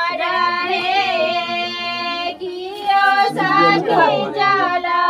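High women's voices singing a Maithili chumavan wedding song unaccompanied, holding long notes that glide between pitches.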